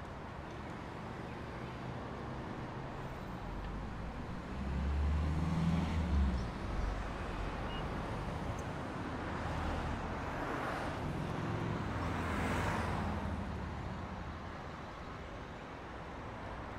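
City street traffic: a vehicle's low engine rumble swells about five seconds in, then cars pass one after another around the middle, their tyre noise rising and fading.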